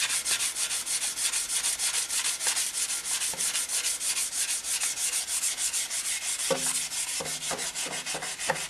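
Abrasive paper being rubbed by hand over the rusty exhaust downpipes of a BMW F650 GS motorcycle, taking off the top layer of rust. It makes a quick, even back-and-forth scratching, about six or seven strokes a second.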